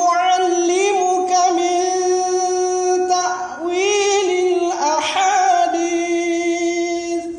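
A man's voice reciting the Quran in melodic tilawah style, holding long, ornamented notes in a high register. It is two sustained phrases with a short breath a little past three seconds in.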